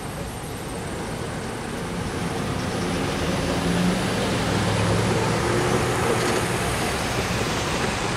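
Road traffic: cars and a van driving past over a railroad crossing, tyre noise with an engine hum that swells to its loudest about four to five seconds in.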